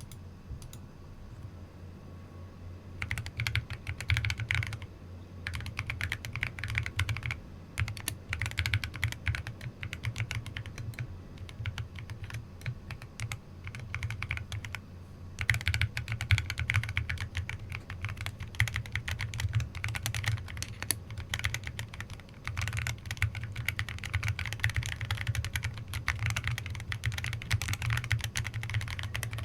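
Typing on a full-acrylic 7sPro mechanical keyboard with FEKER Emerald switches and AKKO ASA-profile keycaps: fast runs of key clacks starting about three seconds in, broken by a few short pauses.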